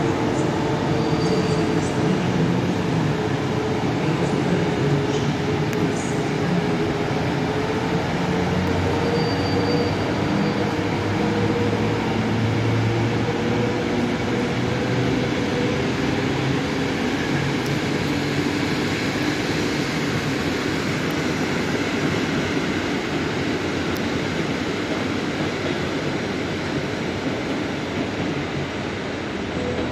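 Electric locomotive moving through a railway station: a steady rail rumble with a drawn-out hum that holds for about the first half and then fades away.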